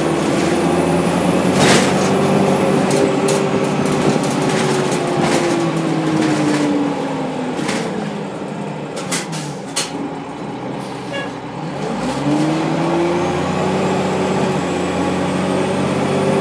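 Orion V transit bus with a Cummins M11 diesel engine and Allison World B400R automatic transmission. Its engine note falls steadily for several seconds as the bus slows, drops low and quieter for a few seconds, then rises again as the bus accelerates away, with scattered rattles and clicks from the bus body.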